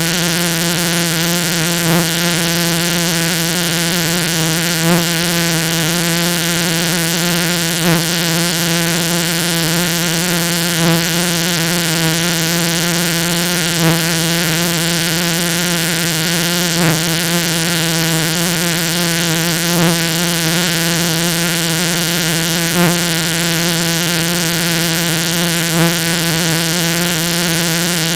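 The 'rubber tongue' sound effect: a buzzy, warbling synthetic drone repeating over and over, with a brief louder accent about every three seconds.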